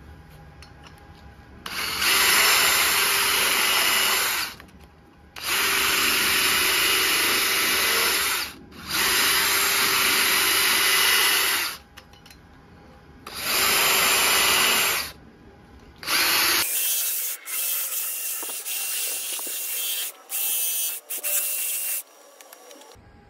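Power tool spinning a wire brush against the cast-iron ports and deck of a Packard straight-eight flathead block, run in four bursts of a few seconds each with short pauses between. Near the end comes a thinner-sounding, stop-start stretch of the same kind of work.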